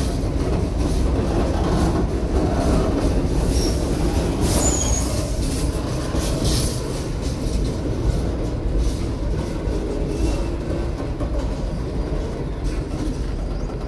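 Freight train rolling past, its wagons rumbling steadily and clicking over the rail joints, with a brief high wheel squeal about four to five seconds in.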